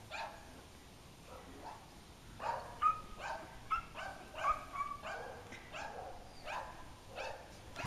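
A dog barking over and over, about two to three barks a second, sparse at first and coming faster and louder from about two and a half seconds in.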